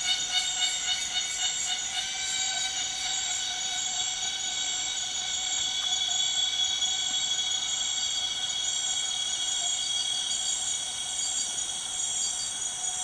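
Insects droning steadily, a high ringing chorus held at one pitch.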